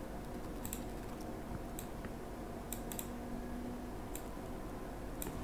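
About six scattered light clicks from a computer mouse, over a faint steady room hum.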